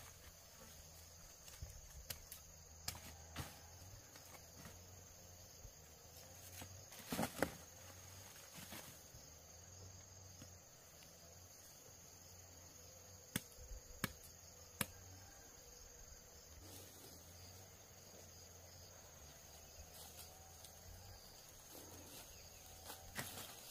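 Faint insects chirring in a steady high tone, with a few scattered sharp clicks and knocks, three close together about halfway through.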